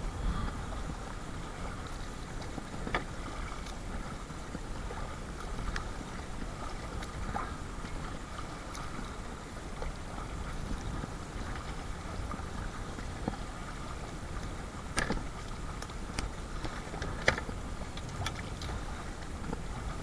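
Perception Sound 10.5 kayak being paddled through choppy water in strong wind: a steady rush of wind on the microphone and water against the hull, with a few sharp knocks and slaps, the loudest near the end.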